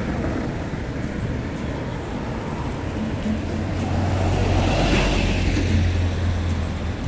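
City road traffic passing close by. A red bus goes past near the microphone: its low engine rumble and tyre noise swell about four seconds in and then fade as cars follow.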